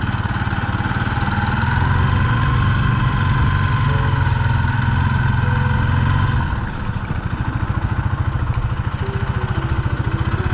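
Small motorbike engine running under way, a steady low drone; about six and a half seconds in the throttle eases off and the engine drops to a quieter, evenly pulsing beat.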